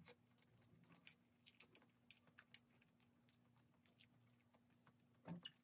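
Near silence, with a few faint scattered clicks of a metal spoon against a small glass bowl and soft chewing of microwaved egg.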